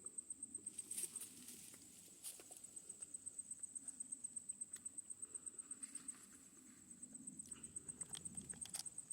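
An insect chirping in a steady, rapid high-pitched pulse of several chirps a second, with a dog rustling and scuffling about in the undergrowth a few times.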